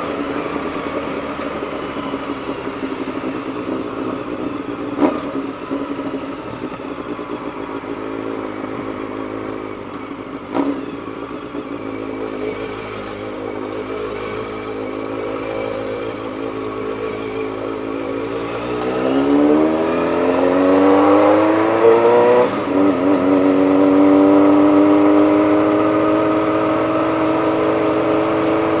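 Honda CBX 750's inline-four engine running under way at a steady speed, with two short knocks about five and ten seconds in. About two-thirds through it accelerates with rising pitch, drops briefly at a gear change, rises again, and then holds a higher steady note.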